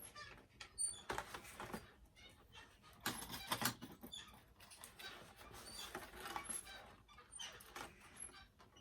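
Small plastic doll accessories and packaging being handled: irregular rustles and clicks, with brief high squeaks.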